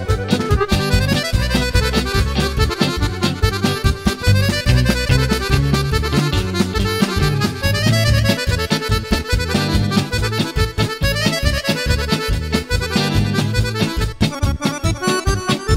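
Instrumental band music with a steady beat, played on keyboard, electric guitar and drums, with a reedy, accordion-like lead melody.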